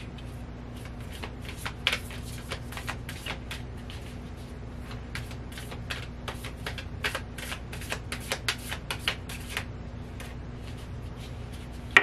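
A deck of matte-finish tarot cards being shuffled by hand: a quick, irregular run of soft card slaps and riffles that thins out near the end, then one sharp snap of the cards right at the close.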